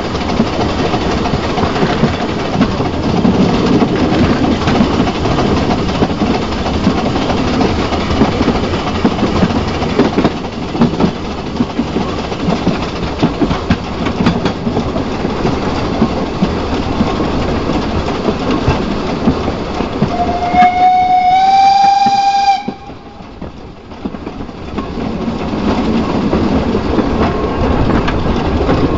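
Steam locomotive 99 516 running along the track with steady clattering. About twenty seconds in it sounds its steam whistle for about two seconds, rising slightly in pitch and cutting off sharply. The running noise then drops away briefly before building again.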